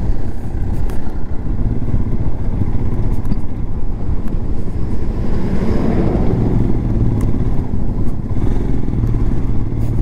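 Motorcycle engine running steadily as the bike rides along, under a loud rumble of wind on the microphone that swells briefly about halfway through.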